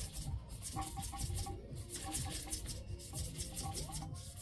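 Fine sandpaper rubbed back and forth by hand on a motorcycle's fork tube, smoothing out small scratches, in quick scraping strokes with short pauses about every second. Faint background music plays underneath.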